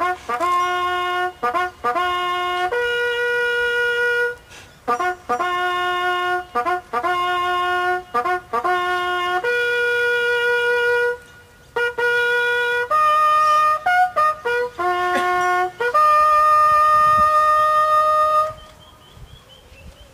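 A solo bugle call on a brass horn: rapid short repeated notes and longer held notes stepping between a few fixed pitches, ending on a long high held note about 18 seconds in.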